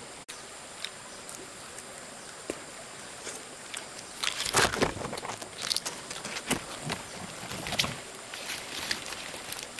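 Forest ambience with insects droning steadily at a high pitch. From about four seconds in come irregular bursts of rustling and light knocks, the loudest a little after four and a half seconds, as of foliage or wood being handled.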